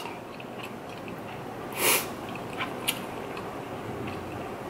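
A single short sniff through a stuffed-up nose about two seconds in, from a woman with a head cold, followed by a few faint clicks of eating.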